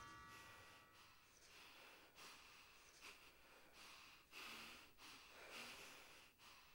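Near silence, with the last of a ringing note fading away at the start, then a few faint breaths.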